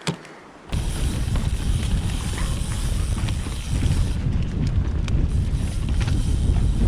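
Full-suspension mountain bike riding along a dirt trail: wind rushing over the microphone with tyre rumble and light rattles from the bike. After a brief quiet moment with a click, the noise starts up and stays loud.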